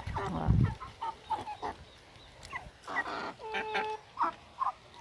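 Hens clucking in short, scattered calls while feeding on crabs, with one longer held call near the end. A loud low thump about half a second in.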